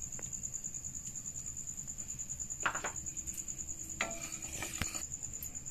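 Light knocks of a wooden spatula against a metal kadai as freshly poured cooking oil is spread and heated, over a steady high-pitched pulsing trill. The sharpest knock comes just before the middle, and a short run of quieter scrapes and taps follows about four seconds in.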